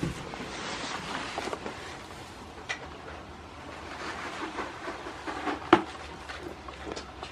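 Goats moving about in straw bedding, a steady rustling and shuffling with a few small clicks and two sharper clicks, the louder one later on.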